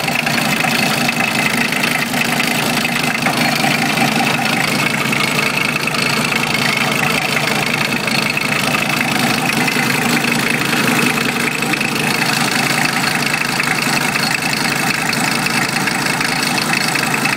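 VW T4's 2.4-litre five-cylinder AAB diesel engine idling steadily, heard up close in the engine bay.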